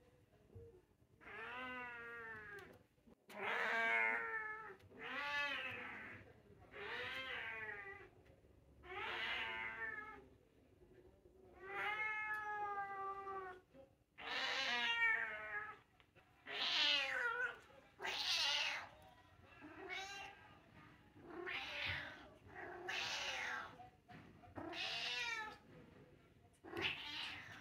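A domestic cat meowing over and over, about fourteen drawn-out meows spaced a second or two apart, each bending up and down in pitch.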